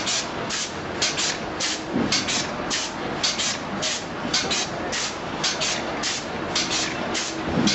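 Two-cavity soap stamping machine running: a steady repeating rhythm of short, sharp hissing strokes, about two to three a second, over a faint steady hum.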